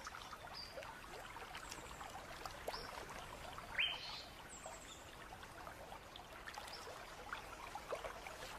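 Faint creek ambience: water trickling, with a few short bird chirps, one of them a quick rising call about four seconds in, and scattered small ticks.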